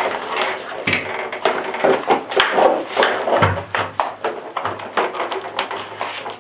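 Rigid clear plastic clamshell packaging being pried open and handled: irregular crackling and clicking with a few louder knocks.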